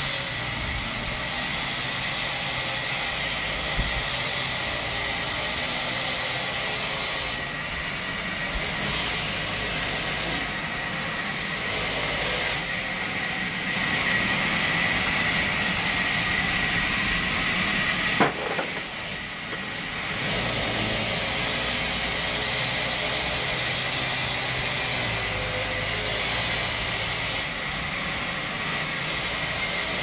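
Sawmill band saw running and cutting a sheesham log lengthwise: a steady loud hiss of the blade through the wood with a high whine. The noise dips briefly several times, and there is a single sharp click about eighteen seconds in.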